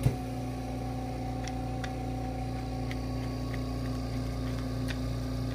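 Home oxygen concentrator's compressor running with a steady, even hum. A short knock comes right at the start, and a few faint plastic clicks follow as a connector is screwed onto a humidifier bottle.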